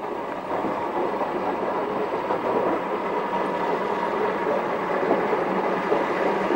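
Ivatt Class 2 2-6-2T steam tank locomotive and its coaches rolling into a station: a steady rumble of wheels on rail with faint clicks, growing louder as the train draws closer.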